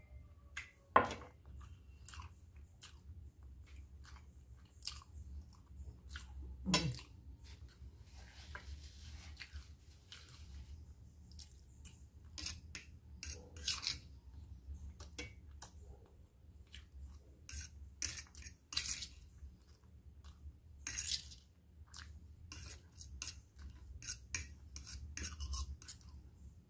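A fork clinking and scraping on a stainless steel plate as cake is cut and eaten, with chewing, in scattered short clicks.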